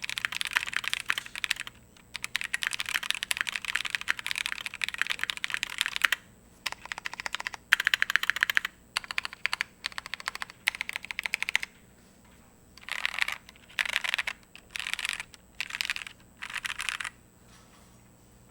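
Typing on a mechanical keyboard with lubed NovelKeys Cream linear switches on a polycarbonate plate, with PBT keycaps. A steady fast stream of keystrokes with a short pause about two seconds in, then a few pauses, and in the last seconds several short separate bursts of keystrokes.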